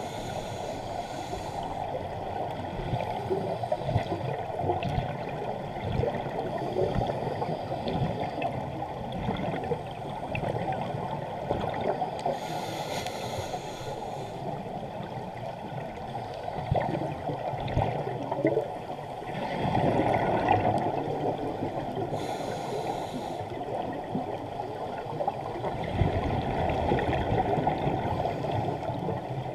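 Scuba diving heard underwater through a camera housing: a steady muffled gurgle of exhaled regulator bubbles and water noise, with several louder surges of bubbling and hiss in the second half.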